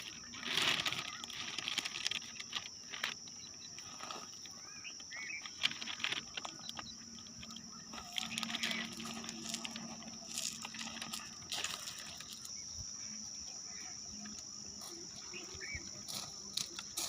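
Scattered raindrops tapping irregularly, over a steady high-pitched drone of insects.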